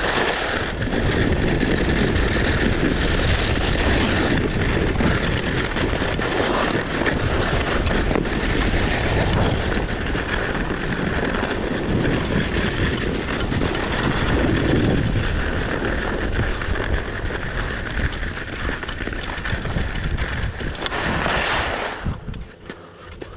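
Skis sliding and scraping over packed, groomed snow at speed, mixed with wind buffeting the microphone. It falls away sharply about a second before the end as the skier slows.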